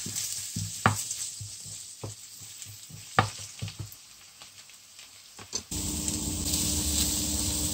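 Chopped onion sizzling in olive oil in a frying pan, stirred with a wooden spoon that knocks against the pan a few times. About three quarters of the way in, the sizzling suddenly becomes louder and steadier, with grated carrot now frying in the pan.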